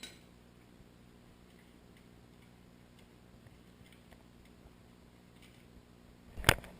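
Faint ticks and handling sounds from tool work on the air filter box, over quiet room tone, then a single loud knock near the end.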